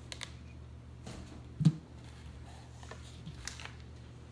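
Handling noise as the old battery pack, two batteries wired together, is lifted off a cardboard sheet: a few light clicks and rustles and one dull knock about a second and a half in, over a low steady hum.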